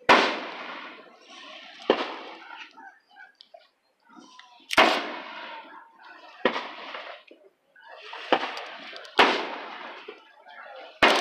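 Aerial firework shells bursting overhead: about six sharp booms spaced one to three seconds apart, each trailing off in a rolling echo.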